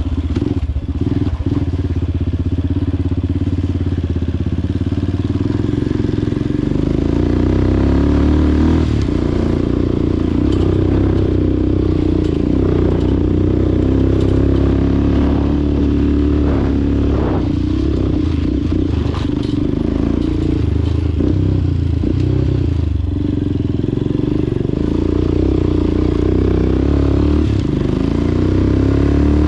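A vehicle's engine running steadily while it is driven over a rough, bumpy road, with scattered knocks and rattles from the bumps.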